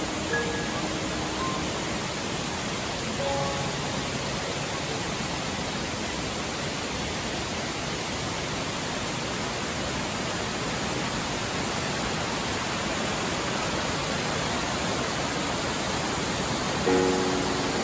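Waterfall rushing steadily, with a few soft musical notes in the first few seconds and again near the end.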